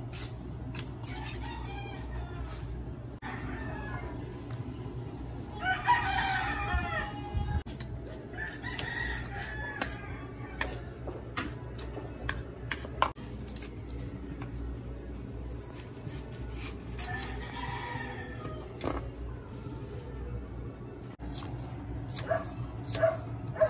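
A rooster crowing about three times, each crow a wavering call lasting a second or two, over repeated knife strokes chopping tomatoes and onions on a bamboo cutting board. A steady low hum runs underneath.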